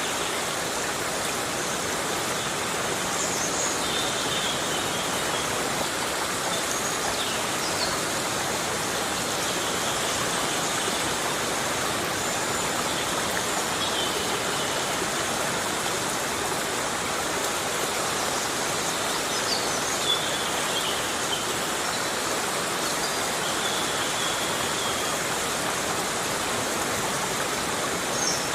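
Heavy rain falling in a forest as a steady, even hiss. A few faint, short, high chirps come through now and then.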